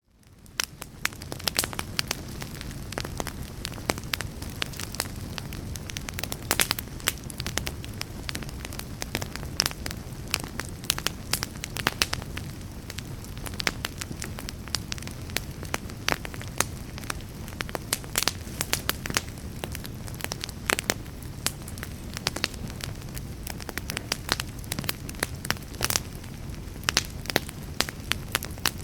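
Wood fire burning in a fireplace: a steady low rush of flames with frequent sharp, irregular crackles and pops. It fades in over the first second.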